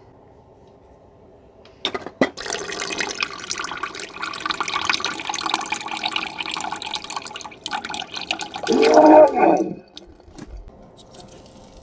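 Liquid from an opened can of green beans being poured off into a stainless steel sink: a couple of clicks about two seconds in, then steady splashing for about six seconds, ending in a short louder gurgle about nine seconds in.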